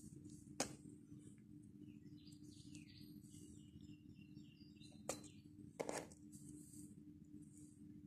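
Faint slime sounds from fingers pressing and poking holes into slime: three small sharp pops or clicks, one under a second in and two close together about five to six seconds in, over a faint steady hum.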